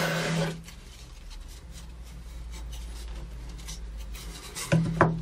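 A wooden stir stick scraping over a plywood board as epoxy is worked, fading out about half a second in. Two quick knocks follow near the end.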